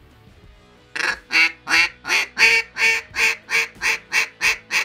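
Double-reed Duck Commander duck call blown in a series of about a dozen quacks starting about a second in, loudest in the middle and coming a little quicker and softer toward the end. The reed tips have just been pinched to stiffen the call, giving a raspier, slightly lower tone.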